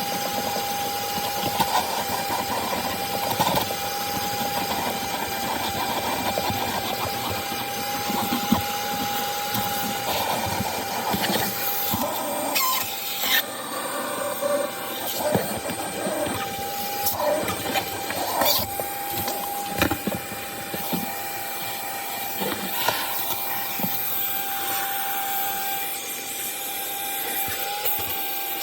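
Ridgid WD0319 cordless 3-gallon shop vacuum running steadily with a constant whine over its rush of air, being worked over car carpet. Scattered clicks and rattles come mostly in the middle stretch as debris is picked up.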